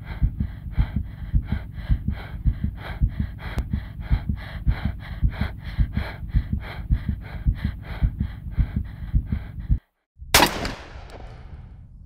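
Fast, steady thumping, about four beats a second with a breathy hiss on each beat, for nearly ten seconds; it cuts off suddenly. After a brief silence a single loud hit rings out and dies away.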